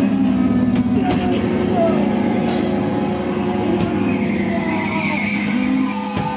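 Loud live rock band playing a sustained droning passage of amplified guitar noise, with held tones and no steady drumbeat.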